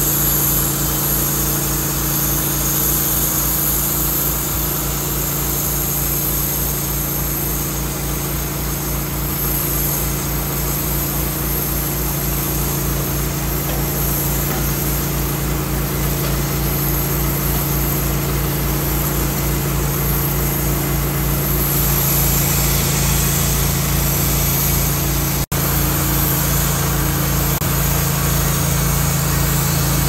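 Engine of a Wood-Mizer LT15 portable band sawmill running steadily, with an even low pulsing throughout. The sound drops out for an instant about 25 seconds in.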